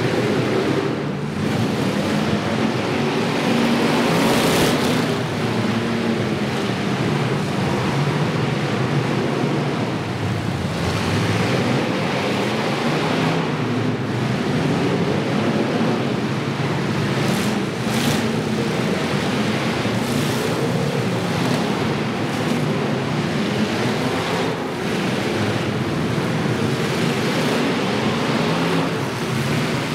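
Several demolition derby car engines running and revving together in a loud, continuous din, their pitches rising and falling unevenly. A few brief, sharper bursts of noise stand out about 4 and 18 seconds in.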